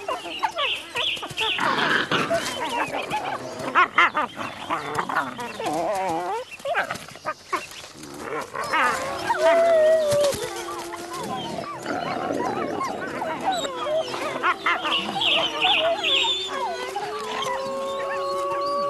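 Gray wolves and their pups play-fighting, with a mix of growls, whines and squealing yelps. Near the end a long, steady howl begins.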